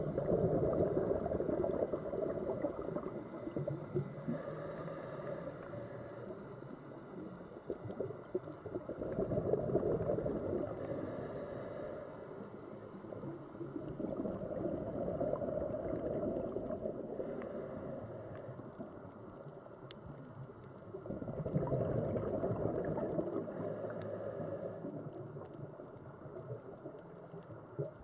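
Scuba diver breathing underwater through a regulator: a hiss on each inhale and a low gurgling rush of exhaled bubbles, four breaths at roughly six- to seven-second intervals.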